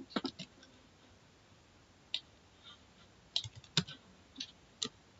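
Scattered computer mouse and keyboard clicks: three quick clicks just after the start, a single click about two seconds in, and a cluster of clicks between about three and five seconds in.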